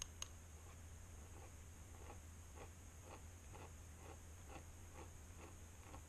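Faint scratching of a fountain pen nib on sketchbook paper in short, repeated strokes, about two a second, after two sharp clicks at the very start.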